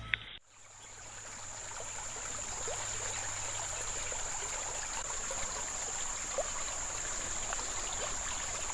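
Steady rush of running river water, with a continuous high-pitched insect drone over it and a few faint ticks.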